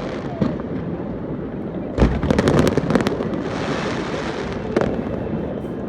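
Aerial fireworks display going off: a rapid volley of sharp bangs about two seconds in, followed by a crackling spray, and another single bang near the end, over a steady rumble of bursts.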